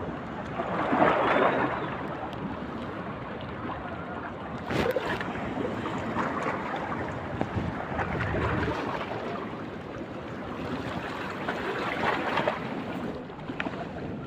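Sea waves surging and washing, with the noise swelling louder every few seconds: about a second in, around the middle and again near the end.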